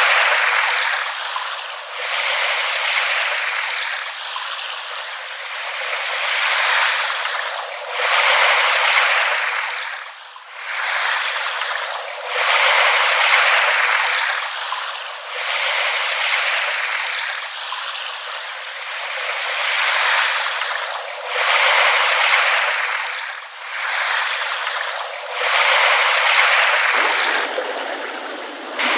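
Small waves lapping on a shore, each gentle wash swelling and falling away about every three seconds. The sound is a thin, hissy splash with no deep rumble.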